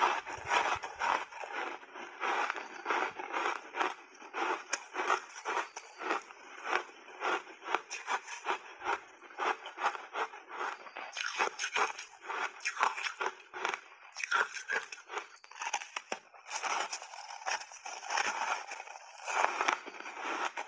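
Close-miked chewing of reshaped purple ice coated in matcha powder: a rapid, irregular stream of crisp crunches as the ice cracks between the teeth.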